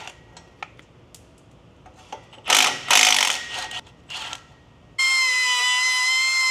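Milwaukee M12 cordless ratchet running in two short bursts as it spins off the rusted exhaust flange nuts, followed about five seconds in by a cut-off wheel starting up with a steady high whine as it cuts at the exhaust.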